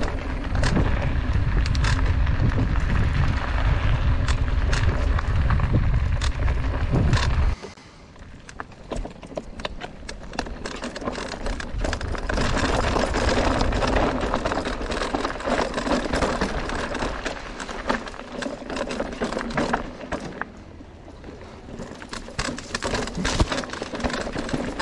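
Electric mountain bike riding downhill over a dirt and gravel trail: tyres crunching on loose stones, with many clicks and rattles from the bike. A heavy low rumble fills the first several seconds and cuts off suddenly about seven and a half seconds in.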